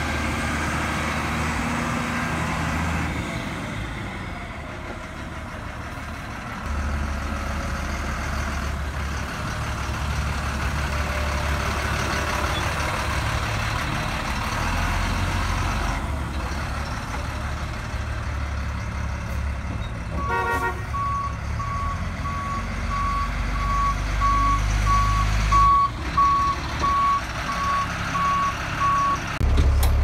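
1998 Blue Bird GMC CV200 school bus's Caterpillar 3116 inline-six diesel running as the bus manoeuvres. About two-thirds of the way in, the bus's reverse alarm starts beeping steadily, about once a second, while it backs up.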